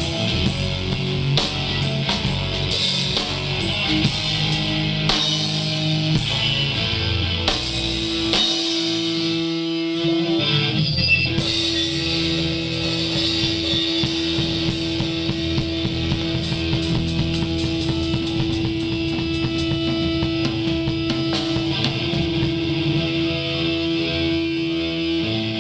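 Rock band playing an instrumental passage: electric guitar over drums and bass, with a long held guitar note. About nine seconds in the bass and drums drop out for a couple of seconds, then the full band comes back in.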